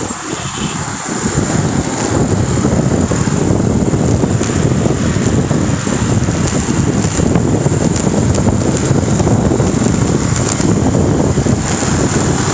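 Wind rushing over the phone's microphone while riding along a road, a dense steady noise that builds over the first second or two and then holds.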